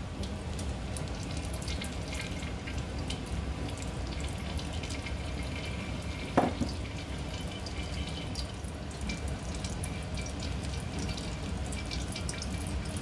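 Melted butter trickling through a fine metal strainer into a wok, the ghee being strained off from its milk solids, with small crackling ticks over a steady low hum. A single knock about halfway through, as the saucepan is set down.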